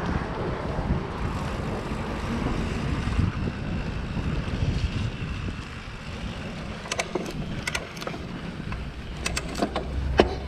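Wind buffeting the microphone while riding along a dirt trail, a steady low rumble with tyre noise, and a few sharp clicks and rattles in the last few seconds.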